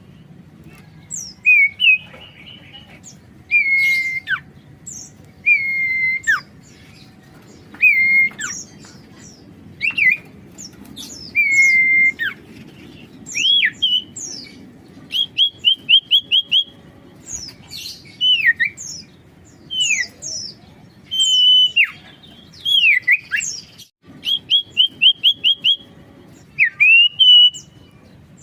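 Common iora (sirtu, cipoh) singing: clear whistled notes, some swooping down or up, some in quick runs of about five short notes, repeated every second or two. This is a lively, full-voiced song of the kind used as a lure call.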